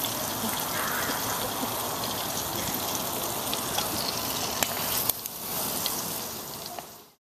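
Breaded coconut shrimp frying in hot oil in a small deep fryer: a steady sizzle with scattered sharp crackles, cutting off abruptly near the end.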